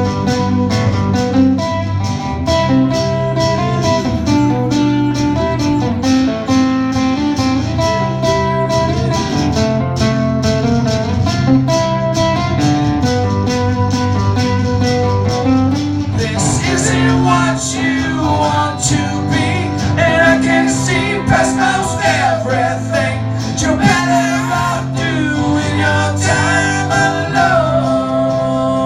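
Acoustic guitars strummed in an instrumental break of a song, with a bending lead melody coming in over the chords about halfway through.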